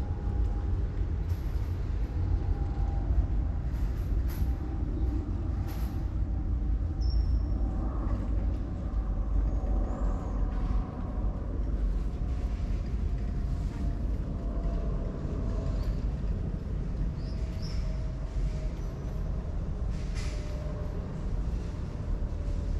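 Steady low engine rumble with a faint whine that slowly drops in pitch, and a few light ticks.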